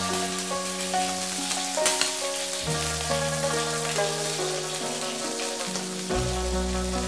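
Pickled mustard greens sizzling as they are stir-fried on high heat in a frying pan, with a wooden spatula scraping and tapping against the pan. Background music of held chords plays over it, changing about three and six seconds in.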